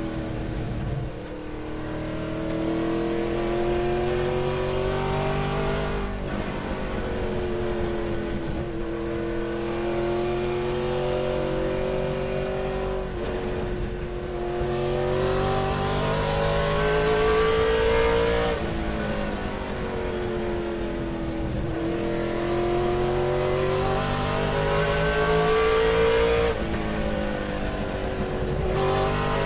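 Race car engine revving hard up through the gears: the pitch climbs for several seconds, then drops sharply at each gear change, about every four to six seconds.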